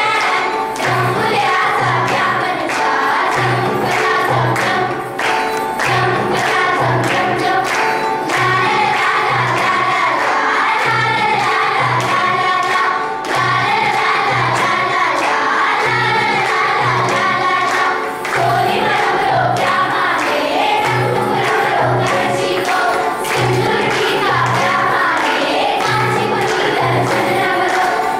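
A choir singing a song over music with a steady low beat and percussion.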